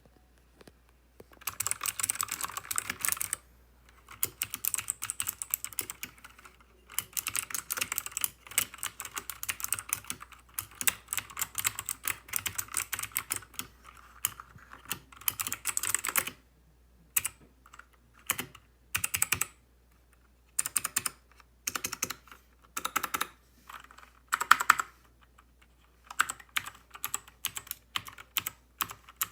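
Typing on a Royal Kludge RK61 60% mechanical keyboard with clicky blue switches: fast continuous runs of keystrokes for the first half, then shorter bursts and separate key presses with pauses between them.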